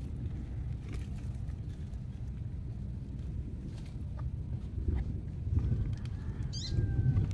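Outdoor ambience: wind rumbling on the microphone, with a few short, high bird chirps near the end.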